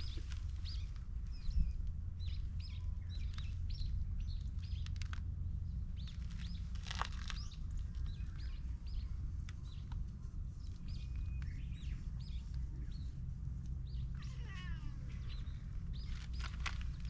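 Small birds chirping repeatedly, short high chirps about every half second, over a steady low rumble.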